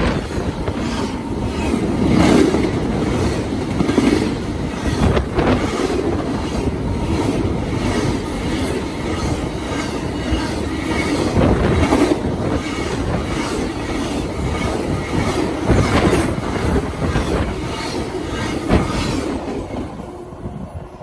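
Union Pacific intermodal freight train's double-stack well cars rolling past close by: a loud, continuous rumble of steel wheels on rail with scattered sharp clacks. It fades near the end as the last car goes by.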